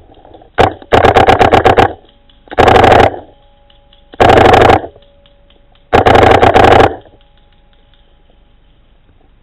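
Paintball marker firing close up: a single shot, then four rapid strings of shots at about ten a second, each lasting half a second to a second.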